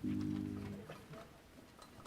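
A high school jazz ensemble ends a tune with a final chord, struck sharply and cut off a little under a second in.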